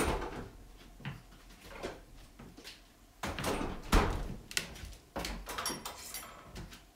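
A door being opened and shut amid knocks and household clatter, the loudest knock about four seconds in.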